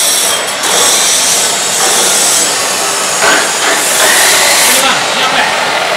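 Steady, loud noise of metalworking power tools running in an exhaust-fabrication workshop, a continuous hiss with thin, shrill high tones.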